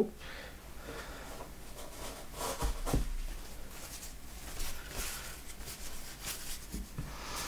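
Faint handling noises on a work surface: scattered light rustles and a few small knocks over a low hiss.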